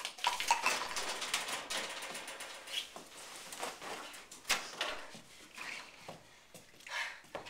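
Rummaging in a metal classroom cupboard: scattered knocks, clicks and rustling with footsteps, including a sharper knock about four and a half seconds in.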